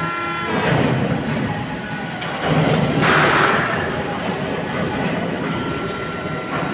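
Machinery running with a steady high whine over a low hum, with two louder rushes of noise, one about half a second in and a bigger one about three seconds in.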